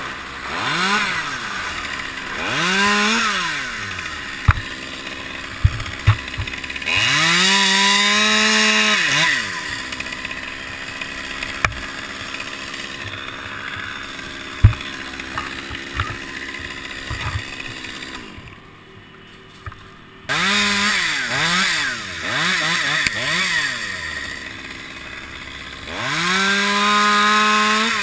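Chainsaw revved up in repeated bursts, some brief and two lasting a couple of seconds, falling back to idle between them. It drops quieter for a couple of seconds about two-thirds of the way through, and a few sharp knocks sound between the revs.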